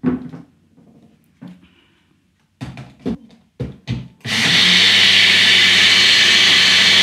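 Personal bullet-style blender: a few knocks and clicks as the cup is seated on its motor base, then about four seconds in the motor starts and runs steadily, blending a thin almond milk of soaked almonds, banana and water.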